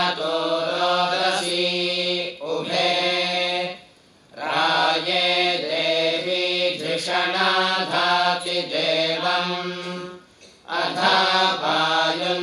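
Vedic mantras chanted by a group of male voices over microphones, a steady recitation on a held low pitch, broken by two short pauses for breath about four seconds in and again about ten seconds in.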